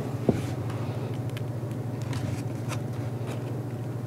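Steady low room hum through the lectern microphone, with a soft thump just after the start and a few faint paper rustles of book pages being turned.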